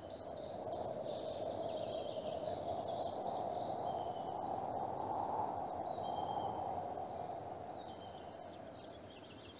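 Small birds chirping in short, high, falling notes, many in the first few seconds and again near the end, over a steady soft hiss of outdoor ambience that swells and fades.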